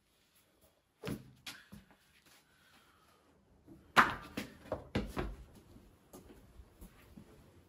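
Rubber boots being pulled on and stamped into place, giving a few dull thuds. A sharp knock comes about four seconds in, then a short run of boot footsteps on concrete.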